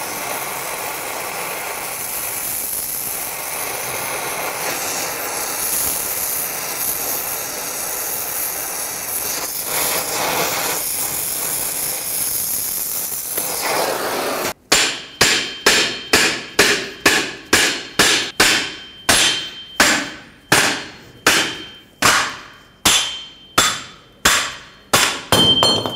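Acetylene torch flame hissing steadily while it heats the wheel bearing's mounting flange on the drum-brake backing plate. About halfway through, the hiss stops and a hammer begins striking metal, about two ringing blows a second, to drive the heat-loosened wheel bearing hub out of the backing plate.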